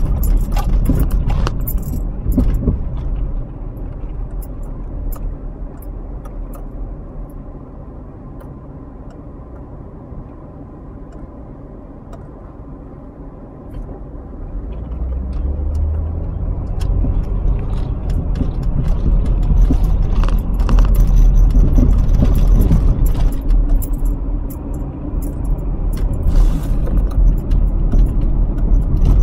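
Car engine and road noise heard from inside the cabin, fading as the car slows to a stop and then building again as it pulls away and speeds up. A light metallic jingling rattle comes through while the car is moving faster.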